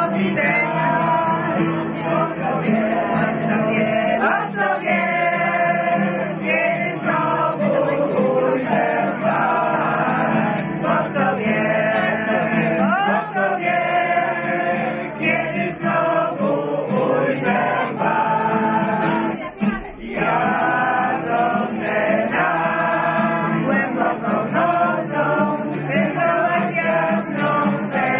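A small group of men and women singing a song together, accompanied by two strummed acoustic guitars, with a brief pause about two-thirds of the way through.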